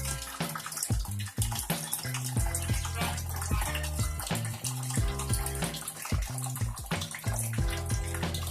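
Background music with a steady beat, over water running steadily from a tap-like outlet.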